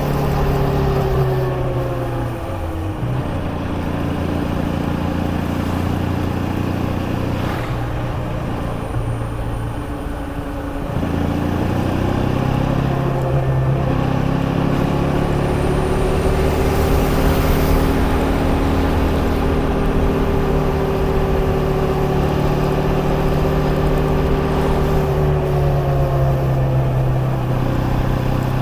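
KTM Duke 250's single-cylinder engine under way. Its note falls as the throttle closes at the start and runs lower and quieter for several seconds. It climbs about eleven seconds in and holds a steady higher note, then drops and picks up again near the end.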